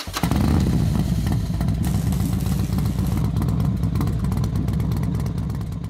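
Motorcycle engine running hard with a rapid, deep exhaust beat, starting suddenly and dying away near the end.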